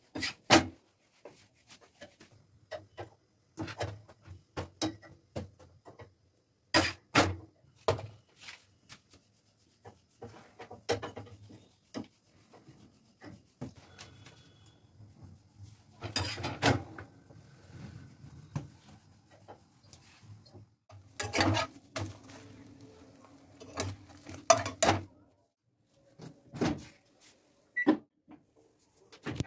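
Irregular kitchen clatter: sharp knocks and clicks of metal tongs against a tava and stove as rotis are turned over a gas burner, over a faint low hum. A single short beep near the end comes from a microwave oven's keypad.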